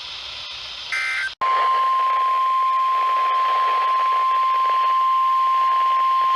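Weather radio broadcast: a short burst of warbling digital data tones (EAS/SAME code) over radio hiss, then after a brief cut a loud, steady single-pitch NOAA Weather Radio warning alarm tone of 1050 Hz that runs on, signalling that a warning is about to be read.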